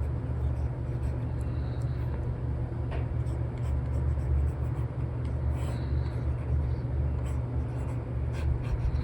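Stylus nib scratching and tapping on a paper-textured tablet screen film in short strokes with scattered light clicks, over a steady low rumbling background noise.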